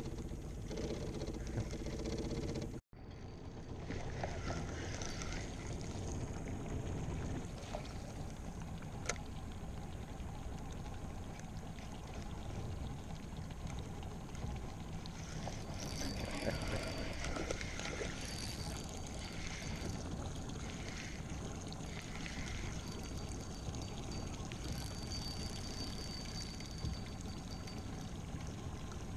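Water lapping and trickling against a small aluminium boat's hull, over a steady low rumble.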